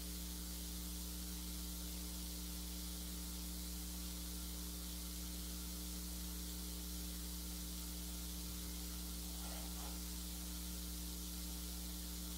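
Steady electrical mains hum with hiss, the recording's own background noise, holding level and unchanged throughout.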